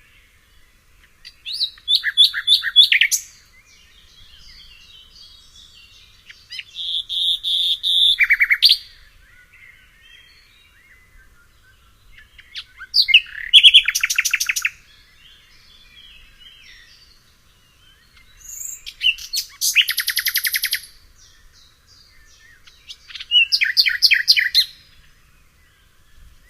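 A songbird singing five short phrases of quick repeated notes and trills, a few seconds apart, with fainter chirping from other birds between them.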